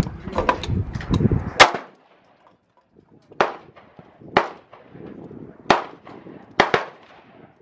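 Gunshots on a firing range: about five sharp reports at irregular intervals of roughly a second, one of them a quick double, each with a short echo.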